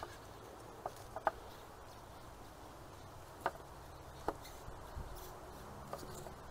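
A fuel injector being twisted and pulled out of a tight fuel rail by hand, giving a handful of faint, sharp clicks at irregular intervals.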